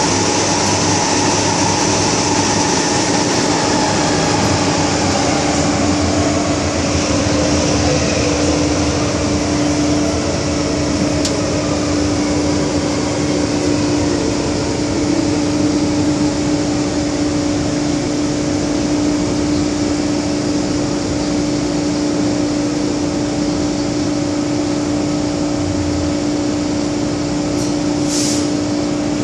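Interior running noise of an MTR Kwun Tong Line M-Train, heard from inside the carriage: a steady rumble and hiss with a constant hum. Over the first several seconds a whine falls in pitch.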